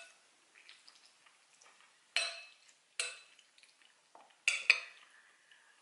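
Metal spoon scraping and clinking against a ceramic bowl while scooping food. About four sharp clinks come from two seconds in, and the last two are close together and loudest.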